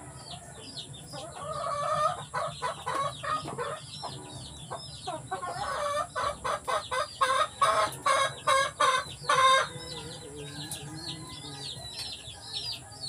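Chickens kept in the house: young chicks peep in quick, high calls throughout, while an adult chicken calls louder and repeatedly in a pulsing series from about one second in until near the ten-second mark.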